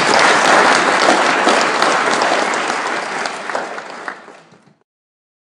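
Audience applauding, dying away over the last second or so and stopping about four and a half seconds in.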